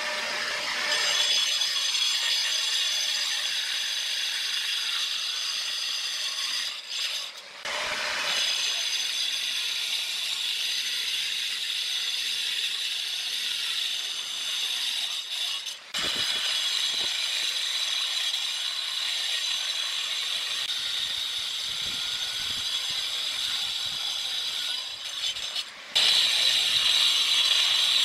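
Handheld angle grinder cutting grey natural stone tiles with a cutting disc: a steady high whine mixed with grinding, broken off briefly three times and loudest near the end.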